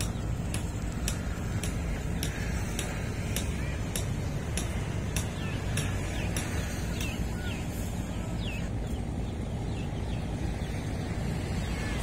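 Outdoor riverbank ambience: a steady low rumble, with small birds chirping now and then. A faint, high, regular ticking comes about twice a second and stops about three-quarters of the way through.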